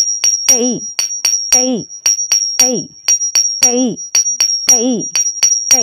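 Rhythmic percussion accompaniment for the dance exercise. Sharp clicking strikes come about four a second over a steady high ringing, with deeper strokes that fall in pitch every half second to a second.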